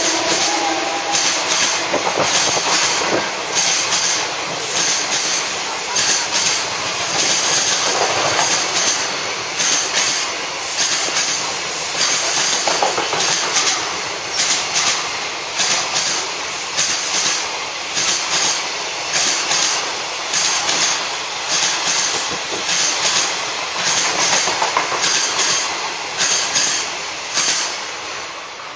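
Long container freight train passing at speed, its wagon wheels clattering on the rails in a steady rhythm over a continuous rushing noise. The sound fades near the end as the last wagon goes by.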